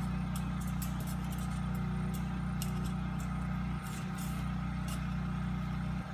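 An engine idling steadily with a low hum, under scattered light clicks of fencing wire and a ratchet wire strainer being handled as the wire is twisted into a tie.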